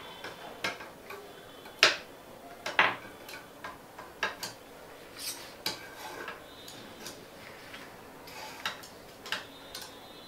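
Paintbrushes and their clear plastic packaging being handled: irregular clicks and taps with short crinkles, the loudest two about two and three seconds in.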